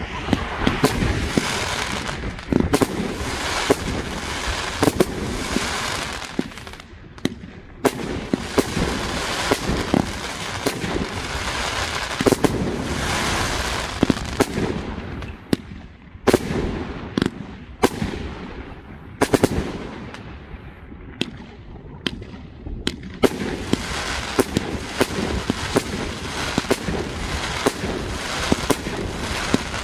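A Saints 49-shot firework cake firing shot after shot, a sharp launch or burst bang every second or two. Between the bangs come stretches of fizzing crackle from the glittering stars.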